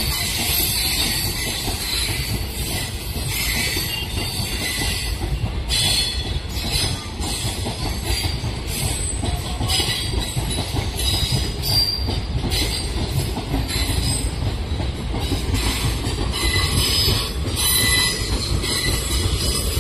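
Indian Railways passenger train, the Dadar–Ballia Superfast Express, running on the track: a steady rumble of wheels on rail with high wheel squeal that comes and goes.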